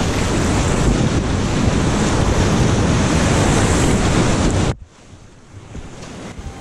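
White-water rapids rushing loudly around a kayak, with wind buffeting the action camera's microphone; the sound cuts off abruptly after about four and a half seconds to a faint hiss, and faint music comes in near the end.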